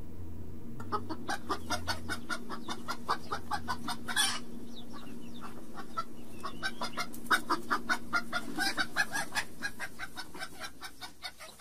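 Chickens clucking, a rapid run of short clucks that fades out near the end.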